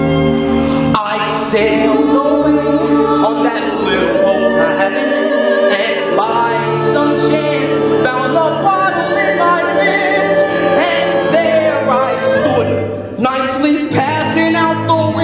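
Mixed cast of a stage musical singing a chorus together in harmony, with long held and sliding notes. A bass-heavy band passage stops about a second in, just as the voices come in.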